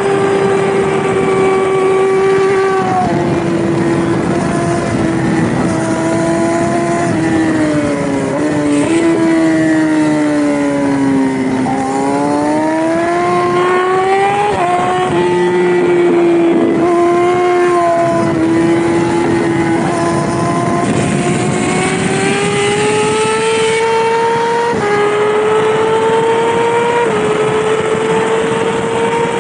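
Yamaha R6 600cc inline-four race bike running hard at high revs, heard onboard with wind rush. The engine pitch steps and glides down through a slow section, lowest about twelve seconds in, then climbs steadily with short steps at the gear changes.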